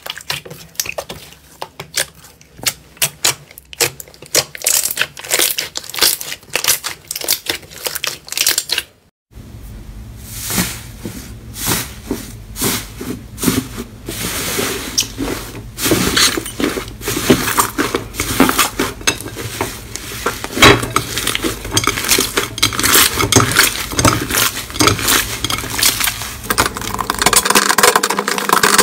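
Hands squeezing and kneading slime, popping and crackling. The first nine seconds hold separate sharp pops; after a brief break comes denser, near-continuous crackling over a low hum as a thicker, fluffier slime is pressed and worked.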